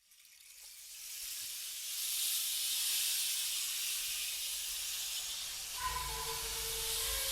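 Forest ambience fading in: a steady high hiss, joined about six seconds in by a low rumble and a brief pitched tone.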